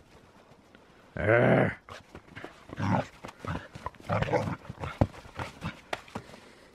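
Dog vocalizing while playing with a rope ball: one loud drawn-out call about a second in, then a few shorter ones.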